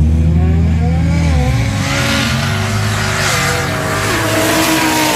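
Single-turbo LS V8 in a Holden VH Commodore SLE street car at full power down a drag strip. It is loudest over the first second and a half, then fades as it draws away, its pitch rising and dipping.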